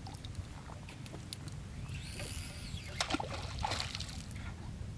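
Light water sloshing and lapping around a small fishing boat, with a few soft knocks about three to four seconds in.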